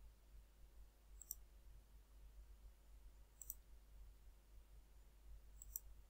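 Three faint computer mouse clicks, about two seconds apart, over near-silent room tone.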